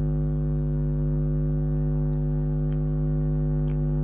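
A steady, unchanging low hum made of several held tones, with a few faint clicks scattered over it.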